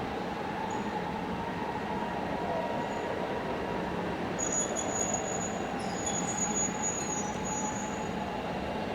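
Train of an EF64 electric locomotive hauling E217 series cars moving slowly, with a thin, high wheel squeal from about four and a half seconds to about eight seconds in. Under it, a siren wails slowly up and down in the background.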